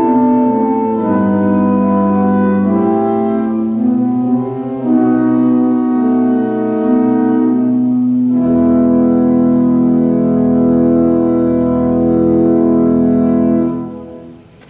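Church organ playing slow, sustained chords. It closes on a long final chord with a deep bass note that comes in about halfway through and is released near the end.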